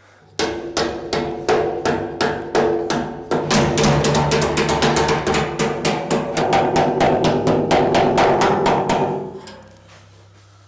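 Background music with a fast, steady drum beat over sustained chords, starting about half a second in and fading out near the end.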